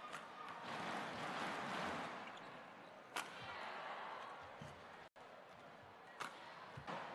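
Badminton rally: sharp racket strikes on the shuttlecock, spaced a few seconds apart, over the steady noise of a large crowd that swells and fades.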